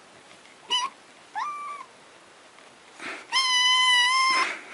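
Kitten meowing three times: a short high meow, then one that rises in pitch, then a long, loud, steady meow near the end.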